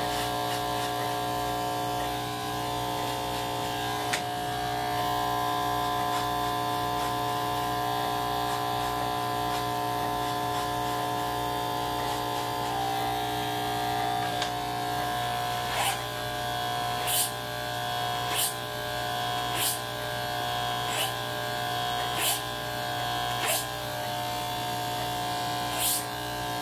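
Corded electric hair clippers running with a steady buzz as they cut hair, worked over a comb. In the second half, short clicks come about once a second.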